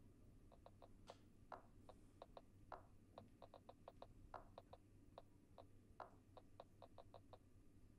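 Faint, quick, irregular clicks of typing on a smartphone keyboard, about two dozen taps as a short text message is written, a few louder than the rest. A faint low hum lies underneath.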